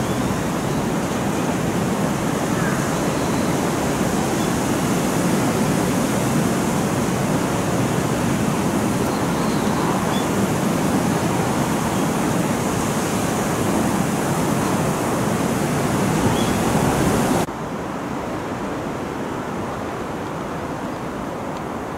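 Steady outdoor rushing noise, with no clear events in it; about three-quarters of the way through it drops suddenly to a quieter rush.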